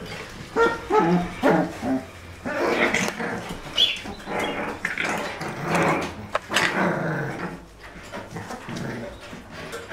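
Two four-week-old puppies play-fighting, giving repeated small growls and yaps.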